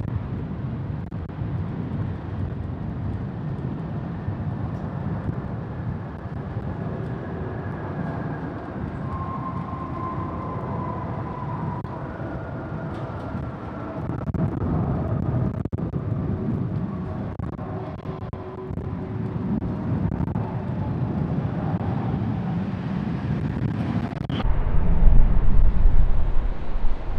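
Emirates Airbus A380's four jet engines running at taxi power, a low rumble with a faint whine that slowly falls in pitch. Near the end a sudden low buffeting of wind on the microphone comes in and the sound gets louder.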